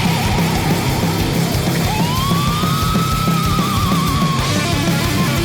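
Old-school death metal playing: a distorted lead guitar note bends up about two seconds in and is held, wavering with vibrato near its end, over a heavy, dense backing.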